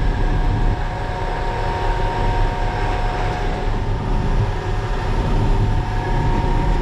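Heavy diesel engine of a concrete mixer truck running steadily: a continuous low rumble with a thin steady whine over it.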